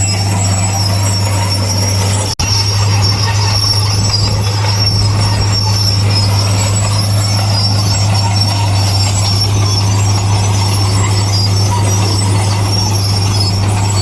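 Heavy earthmoving machinery at work: a steady diesel engine drone with wavering high-pitched metallic squealing over it, broken by a brief drop-out about two and a half seconds in.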